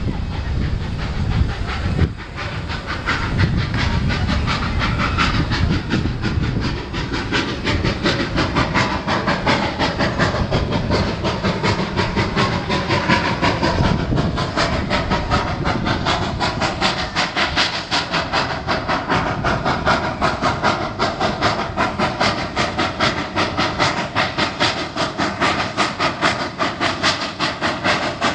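Durango & Silverton narrow-gauge steam locomotive approaching, with hissing steam. From about eight seconds in its exhaust beats grow into a steady, even rhythm of roughly three a second.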